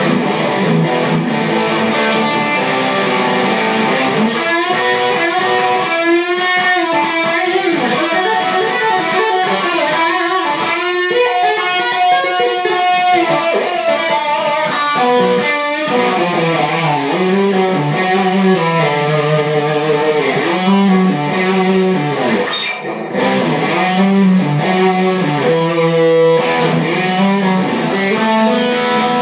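Electric guitar played loud through a Peavey amp head and Mesa speaker cabinet, improvised noodling with long held notes and quick runs of notes, with a short break in the sound about two-thirds of the way through.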